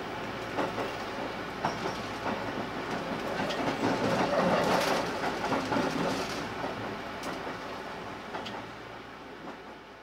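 Running noise of a JR West 281 series limited express train, heard inside the passenger car: wheels rumbling on the rails with scattered clicks at rail joints. It swells to its loudest about halfway through, then fades away toward the end.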